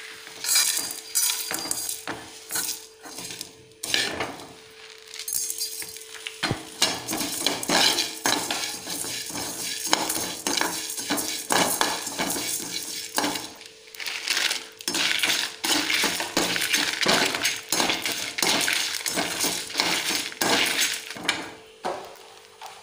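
Perforated steel skimmer scraping and stirring whole coriander seeds, dried red chillies and other whole spices in a dry kadai: a continuous rattle of dry seeds with irregular metal-on-metal scrapes and clinks, the spices being dry-roasted without oil.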